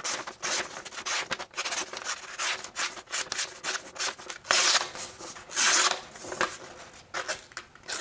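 A Civivi Elementum Button Lock folding knife blade slicing through printer paper in a paper-cut sharpness test, with rasping cut strokes and paper rustle. There is a run of short cuts, and two longer, louder slices come about halfway through.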